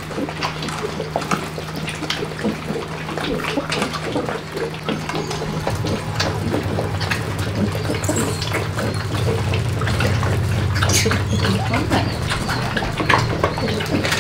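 Several puppies eating together from one bowl: many quick, wet lapping and chewing clicks. A steady low hum runs underneath and grows louder about halfway through.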